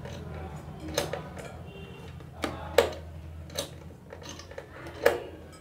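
Irregular light clicks and knocks, about five over a few seconds, from CPU air cooler and motherboard hardware being handled, over a low steady hum.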